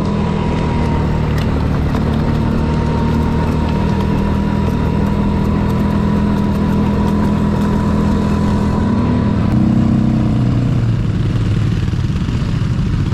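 ATV engine running steadily while riding a dirt trail, revving up briefly about ten seconds in and then easing off.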